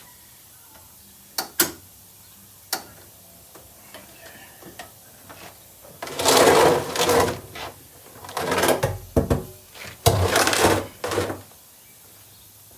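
A few sharp knocks, then three loud scraping, rattling bursts starting about halfway through: a test barrel being dragged and set into place under an outboard motor.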